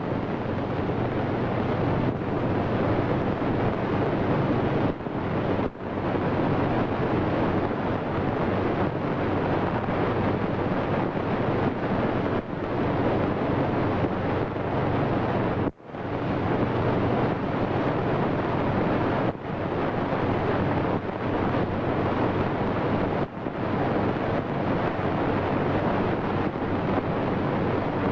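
Steady, loud rushing noise on an old film soundtrack, without speech or music, broken by a few brief dropouts.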